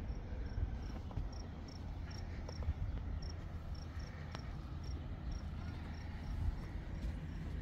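A cricket chirping: short, high chirps at one steady pitch, about two a second and unevenly spaced, over a low steady rumble.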